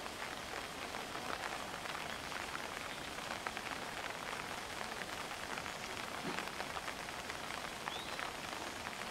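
Pouring rain: a steady, dense patter of drops hitting the ground and surfaces.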